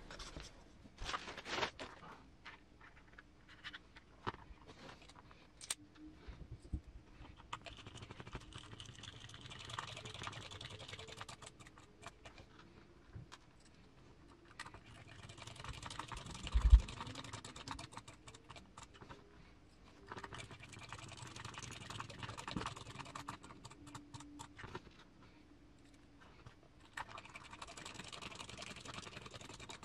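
Screws being driven into a small RC transmission, with many light clicks and taps of small plastic and metal parts being handled. There are four steady rasping stretches a few seconds long, and one dull thump a little past halfway.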